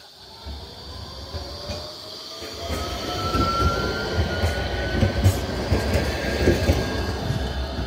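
Tram passing close by on street track, its wheels rumbling and knocking on the rails. A thin whine slowly rises in pitch, and the rumble grows louder as the tram draws alongside.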